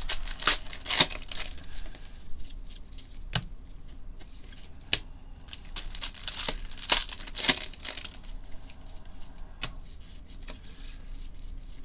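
Trading-card pack wrappers being torn open by hand, with crinkling of the wrapper and light clicks of the cards being handled. The short rips cluster in the first second or so and again about two-thirds of the way through.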